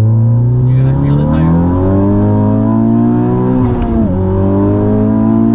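Big-turbo Honda Civic Type R's 2.0-litre turbocharged four-cylinder under full throttle, heard from inside the cabin: the revs climb steadily through second gear, drop sharply at an upshift about four seconds in, then climb again in the next gear.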